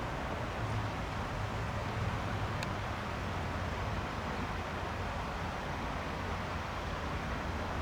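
Steady low rush of outdoor background noise with no distinct engine tone, and a faint short tick about two and a half seconds in.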